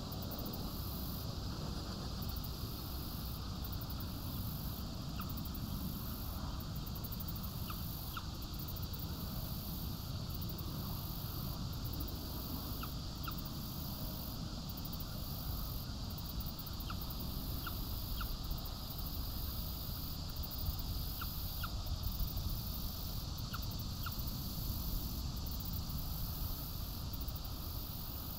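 Outdoor ambience: a steady low rumble and hiss, with scattered faint, very short chirps or ticks through it.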